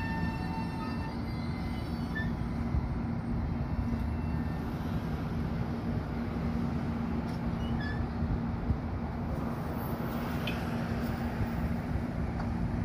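Long Island Rail Road train running past: a steady rumble of wheels on rail under a low hum, with a few brief high squeaks about eight and ten seconds in.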